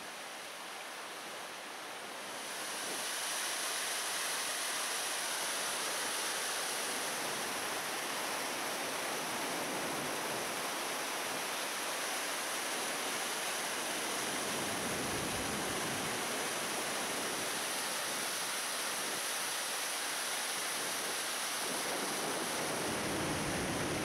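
River Ure rushing over the limestone rapids and falls at Aysgarth: a steady roar of water that gets louder about two and a half seconds in. There are brief low rumbles near the middle and toward the end.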